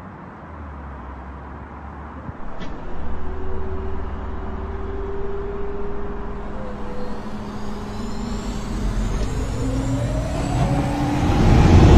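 Sports car powertrain starting up with a low rumble that steps up about two seconds in and grows louder, then a rising whine over the last few seconds as it revs.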